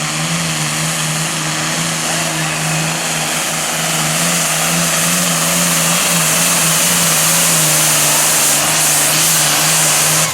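Super Farm class pulling tractor's turbocharged diesel engine running hard, a loud steady drone whose pitch wavers slightly, with a hiss that grows stronger about four seconds in. The waver fits the intermittent flutter the crew has been fighting in this tractor.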